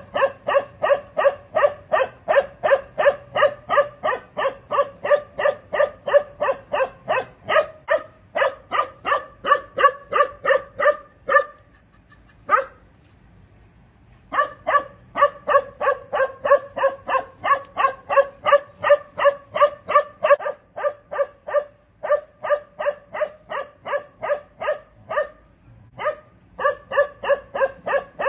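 A young Bakarwal dog barking over and over in a quick steady rhythm, about three barks a second. It breaks off for a couple of seconds near the middle, with a single bark in the gap, and pauses briefly again near the end.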